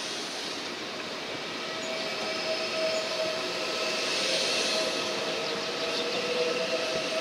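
ICE T (DB Class 411) electric multiple unit rolling slowly along the platform. Its traction equipment gives a steady whine over the rumble of wheels on rail, growing a little louder.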